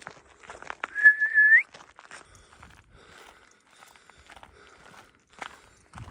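A person whistles once to call dogs: a single high note held for about half a second, rising at the end, about a second in. Quiet footsteps and rustling on a path around it.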